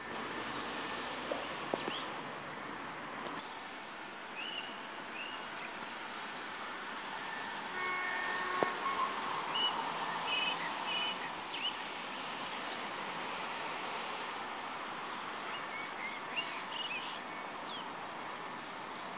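Faint sound of a distant train approaching a railway station: a steady outdoor hiss with a thin, steady high tone, swelling slightly about halfway through. Short bird chirps come now and then.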